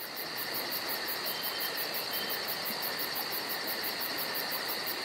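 Insects chirping in a fast, even pulse, about six or seven pulses a second, over a steady hiss.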